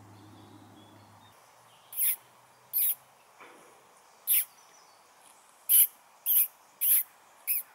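A bird calling nearby: seven short, sharp, high-pitched calls at irregular intervals, starting about two seconds in.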